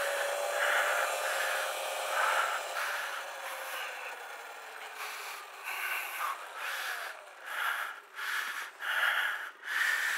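Hard, rapid breathing close to a helmet-mounted microphone, about two breaths a second. Under it, the faint whine of a Sur-Ron Light Bee electric dirt bike's motor falls slowly in pitch as the bike rolls to a slow pace.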